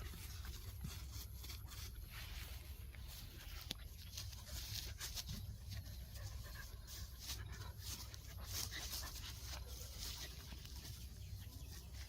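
Dogs playing together: scattered small scuffles and clicks over a low steady hum.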